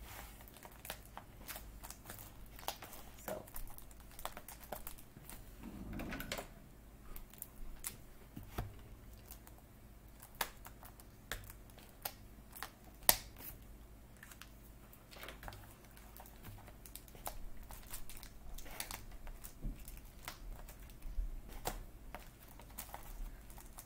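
Irregular light clicks, taps and rustles of hands working at a cardboard box, picking at its seam to open it, with one sharper snap about halfway through.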